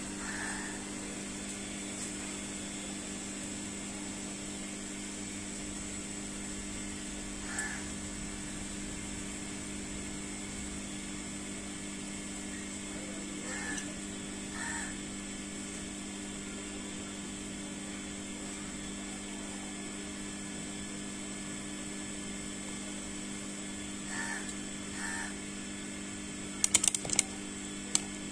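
A steady mechanical hum of several fixed tones, with a few faint short sounds scattered through it and a quick cluster of sharp clicks near the end.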